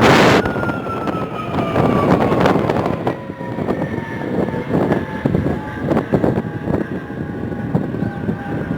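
Airbus A330 MRTT (KC-30M) jet engines passing: a rumble with a whine that falls slowly in pitch as the aircraft moves away. Wind buffets the microphone in gusts.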